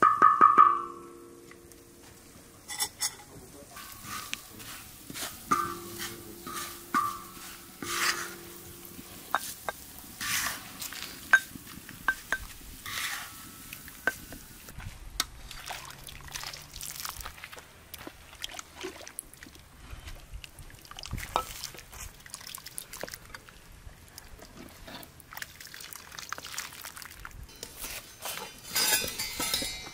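Scattered clinks, taps and scrapes of a metal spoon and cooking utensils against a bowl and pots, with some stirring and pouring of liquid. A dog barks right at the start.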